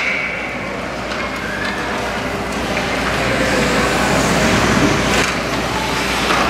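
Indoor ice rink noise during a youth hockey game: skates on the ice and scattered spectator chatter, with a brief click about five seconds in.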